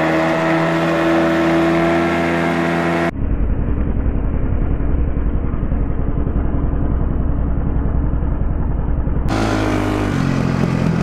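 Enduro motorcycle engine running at steady throttle on the move. About three seconds in, the sound cuts abruptly to a duller, muffled engine rumble with a rapid pulse, and near the end it cuts back to a clearer engine note.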